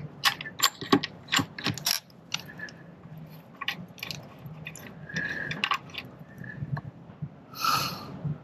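Ratchet wrench clicking in uneven runs while working a badly corroded, crumbling bolt, with a quick flurry of clicks at first and sparser ones after. Near the end comes a brief harsh noise.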